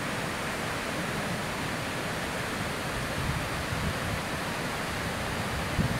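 Multi-tiered waterfall cascading over several drops: a steady, even rush of falling water, with a few brief low bumps near the end.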